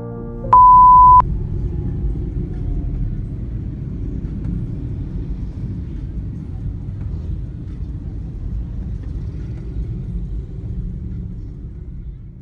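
A single loud, steady electronic beep lasting under a second, followed by a steady low rumble.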